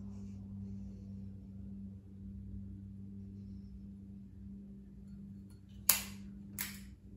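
A tobacco pipe being lit with a flip-top lighter over a steady low hum, then two sharp clicks about six seconds in, the second softer, as the lighter's metal lid is snapped shut.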